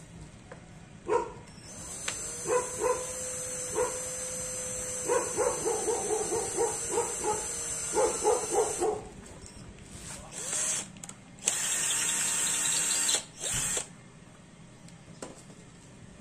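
Cordless drill running as it bores through a clear plastic windscreen: a steady high whine for about seven seconds, then a couple of short bursts and a second shorter run. A dog barks repeatedly during the first run.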